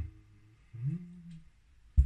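Sharp plastic clicks from calculator-kit keycaps and parts being pressed and handled, one at the start and a louder one at the end, with a short low hummed 'hmm' in between.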